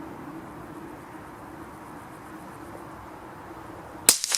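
A single shot from a CZ457 .22 LR rifle firing a CCI Stinger high-velocity hollow point: one sharp, loud crack near the end, followed by a brief echo that dies away.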